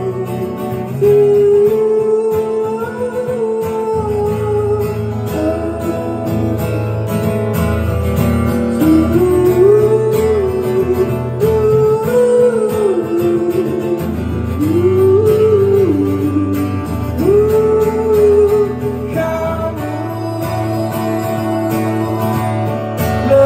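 Live acoustic song: a man sings long notes that glide up and down over a strummed acoustic guitar.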